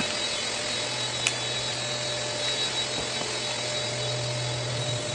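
Steady whooshing machine noise with a low hum running throughout, and a light click about a second in.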